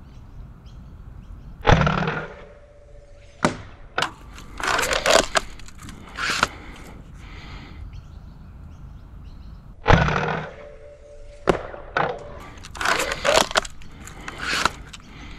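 Sabre M20S heavy-spring foam-dart sniper blaster firing twice, about eight seconds apart. Each shot is a sharp crack with a brief ring. After each shot comes a run of clacks and clicks as the blaster is primed and reloaded.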